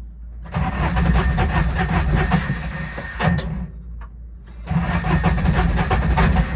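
Starter cranking the Intimidator UTV's diesel engine in two long bursts of about three seconds each, with a short pause between them, without the engine catching: a hard start that the owner puts down to glow plugs he suspects are not working.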